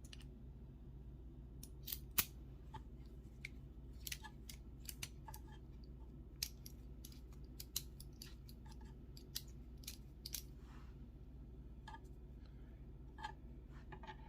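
Faint, irregular light clicks and ticks over a low steady hum.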